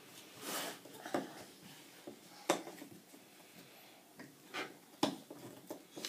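Cardboard jigsaw puzzle pieces being handled and pressed into place on a tabletop: a few scattered light taps and clicks, the sharpest about two and a half seconds in.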